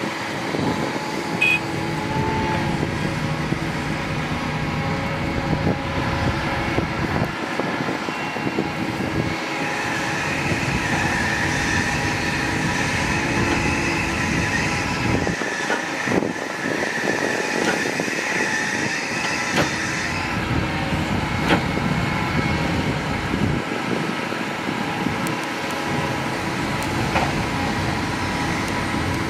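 Doosan crawler excavator's diesel engine running under load, with a high hydraulic whine through the middle stretch as the boom and bucket work. Near the end comes a scatter of knocks as a bucketful of dirt drops into a steel dump-truck bed.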